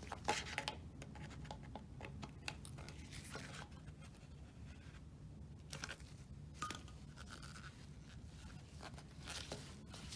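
Scattered light clicks and scrapes of hands and tools working at power steering hoses and their clamps, over a steady low hum.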